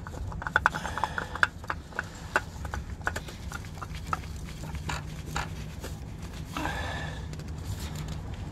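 Irregular clicks, taps and light scrapes of hand work under a car as a new oil filter is threaded onto the engine by hand, with a brief scraping swish near the end.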